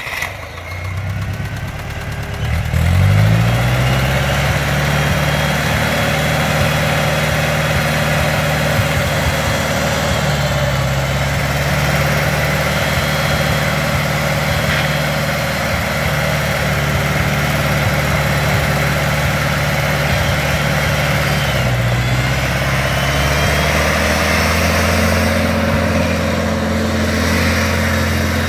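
Massey Ferguson 245 tractor engine running: the revs climb over the first few seconds, then it runs steadily. About 22 seconds in the pitch dips briefly and comes back up.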